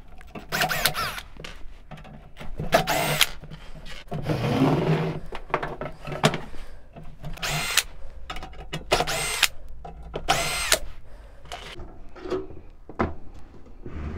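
Cordless drill spinning in about five short bursts, each winding up and back down in pitch, as it backs out the case screws of an inverter welder.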